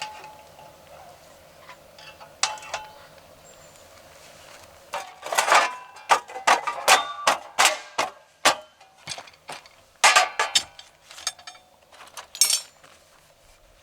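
Dishes and cookware clinking and knocking as they are handled: a few light clicks, then a quick run of knocks and clinks with a short ring after some of them.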